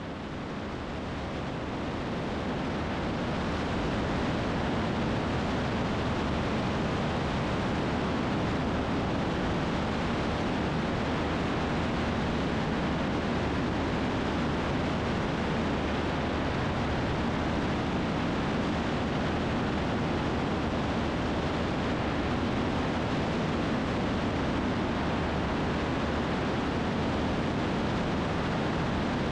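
Single-engine Cessna in flight: a steady engine drone with rushing wind noise. It fades in over the first few seconds, then holds level.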